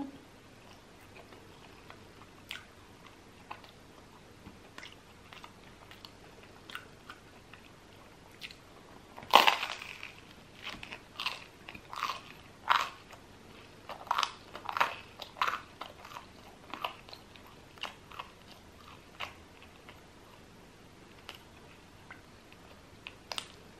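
Close-miked eating of crusty bread and cheese: small mouth clicks, then one loud crunchy bite about nine seconds in, followed by several seconds of crunchy chewing that thins out to occasional soft mouth sounds.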